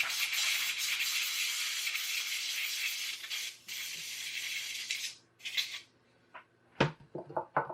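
Compressed air hissing in one long blast, blowing dust out of a laptop's cooling fan area. It stops about five seconds in, followed by a brief second puff. A few light knocks and clicks of handling come near the end.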